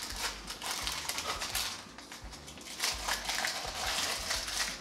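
Packing wrap rustling and crinkling as a wrapped part is pulled open by hand, in irregular crackles with a quieter pause about two seconds in.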